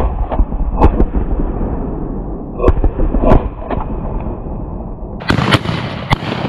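Shotgun shots at flushing quail: a loud bang right at the start and several more sharp reports over the next few seconds, over a low rumble of wind or brush on the microphone.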